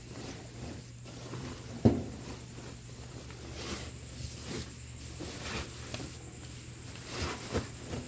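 Cotton bedding rustling and crumpling as it is pushed by hand into a top-load washing machine's drum, with a sharp thump about two seconds in and a few softer knocks.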